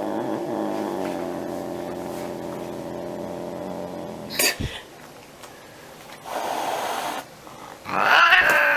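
An angry domestic cat gives a long, drawn-out yowl that slowly falls in pitch. It is cut by a sharp knock about halfway, then comes a short hiss, and a loud yowl breaks out near the end.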